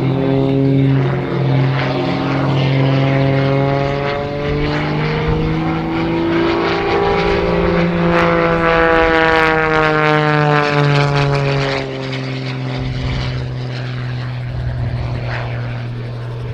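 Wolf Pitts Pro aerobatic biplane's Lycoming 540 piston engine and propeller running hard in display flight. The engine note rises and then falls around the middle, then settles to a lower, steadier drone.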